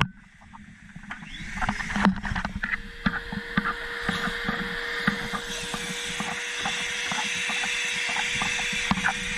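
Shop vac switched on with a click, its motor building up over a couple of seconds and then running steadily with a constant hum, while the crevice tool knocks and rattles as it sucks lint out of a dryer vent. Muffled by a camera's underwater housing.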